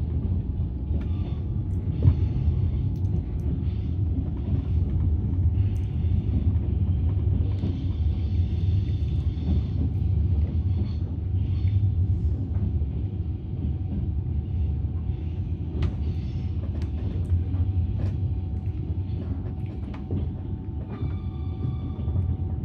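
Passenger train rolling along the track: a steady low rumble with occasional sharp clicks.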